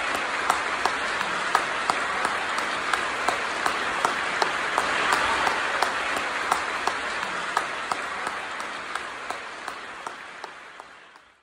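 Theatre audience applauding: a dense wash of clapping with sharp single claps close to the microphone standing out several times a second, fading away over the last few seconds.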